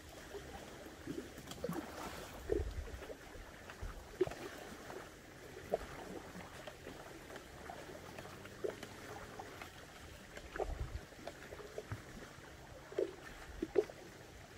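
Small lake waves lapping and trickling at the shore in short, scattered splashes, with a few gusts of wind rumbling on the microphone.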